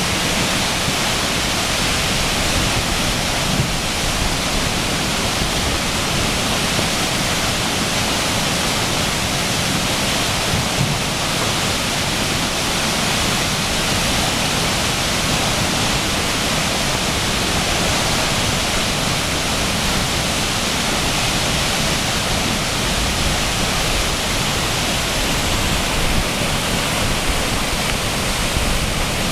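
A brook in flood, overflowing its banks: a loud, steady rush of fast water.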